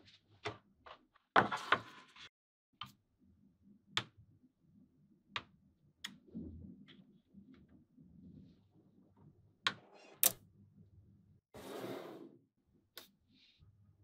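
Small magnetic balls clicking and snapping together as they are set in place, in sharp single clicks spaced irregularly a second or more apart, with a brief scraping rustle near the end.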